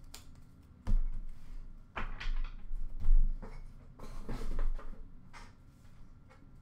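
Trading cards handled and set down into a plastic bin: a series of soft thumps and rustles, about one a second.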